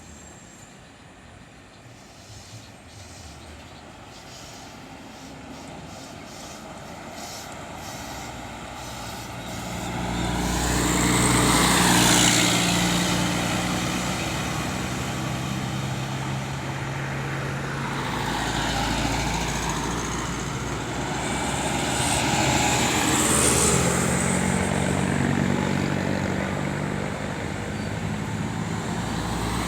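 Buses passing close by on a road, one after another. Engine and tyre noise builds over the first ten seconds and peaks as the first goes past about twelve seconds in, and more pass later.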